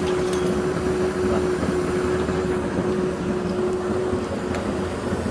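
Vacuum cleaner fitted with an ash-vacuum attachment for fireplace and grill ash, running steadily: a constant motor drone with one steady hum tone that fades a little about four seconds in.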